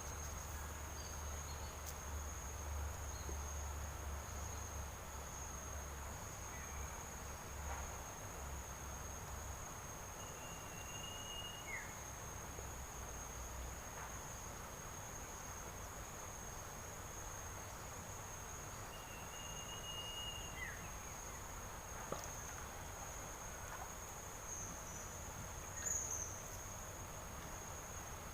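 An insect, likely a cricket, trilling steadily on one high pitch, with two short chirps about ten and twenty seconds in. A low rumble underneath stops about halfway through.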